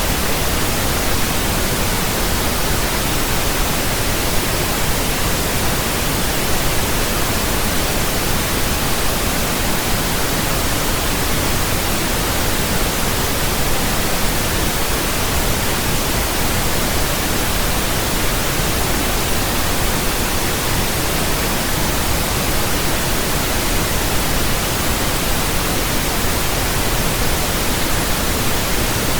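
Steady pink noise: an even, unchanging hiss spread across all pitches, with more weight in the low end than white noise.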